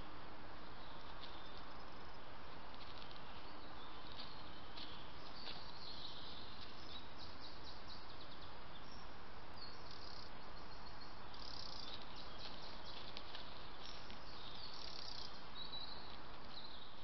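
Steady hiss from a trail camera's microphone, with faint high chirping calls and scattered light ticks over it.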